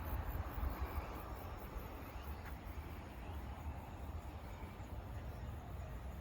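Faint outdoor background noise with a steady, uneven low rumble, like wind buffeting the microphone.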